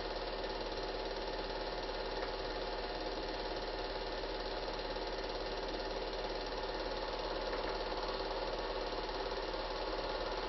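Steady mechanical whirring and fast rattling of a running cine film projector, with a low mains hum underneath. It does not change at any point.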